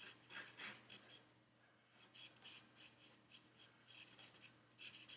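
Faint scratching of a drawing tool on paper: a run of short sketching strokes, pausing briefly about a second in before more strokes follow.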